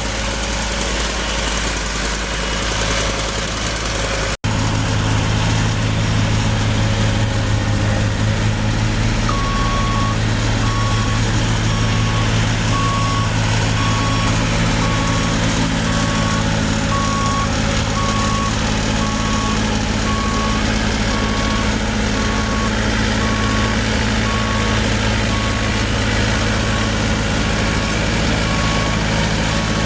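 Heavy vehicle's diesel engine running steadily, joined about a third of the way in by a reversing alarm beeping about once a second.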